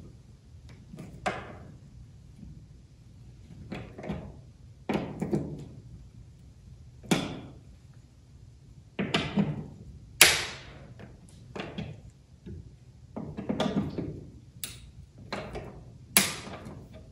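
Hand-held Phillips screwdriver giving wood screws their final tightening turns in a wooden wall-mounted base, heard as a series of short, sharp clicks and scrapes at irregular intervals of about a second or two. The screws are being snugged so their heads countersink slightly into the wood.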